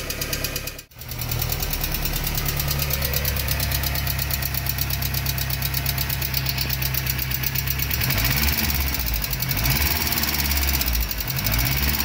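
VW AP 1.6 four-cylinder engine idling with a fast, even tapping from hydraulic lifters that have not yet filled with oil, the sign of low oil pressure. The sound drops out briefly about a second in, and the engine note wavers near the end.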